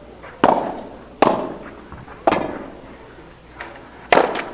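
Padel rally: the ball being struck with solid padel rackets and bouncing off the court, four sharp pocks at uneven intervals, each with a short ringing tail.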